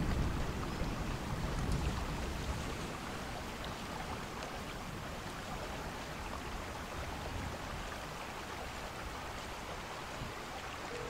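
A steady, even rushing noise, water-like as of rain, with a low rumble that dies away over the first two seconds or so.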